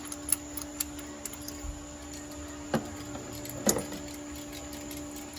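A few sharp, scattered clicks and clinks of hand tools during a spark plug change, over a steady hum.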